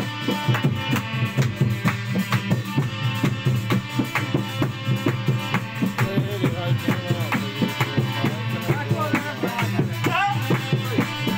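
Dholak, a two-headed barrel drum, played by hand in a quick, steady rhythm over long held notes from an accompanying instrument.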